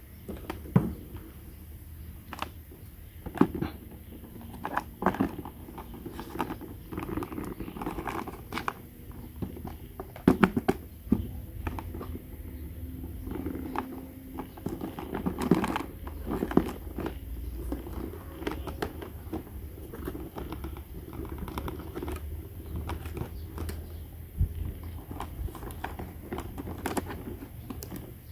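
Small plastic toy kitchen pieces being handled, with irregular light clicks and taps, a few sharper knocks, and some crinkling.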